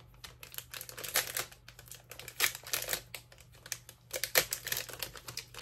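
Crinkly plastic packaging of a pack of soft gel nail tips being handled, making irregular crackles.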